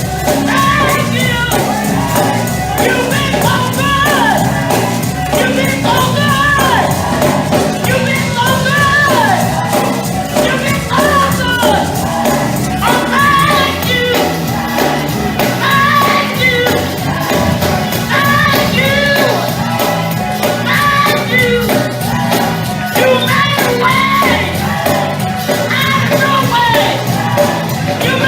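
Live gospel praise and worship music: voices singing over a band, with a steady bass and a regular percussive beat.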